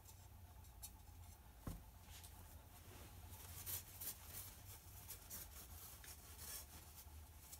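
Faint rustling and rubbing of a cloth towel being handled, with one soft knock about a second and a half in, over a low steady hum.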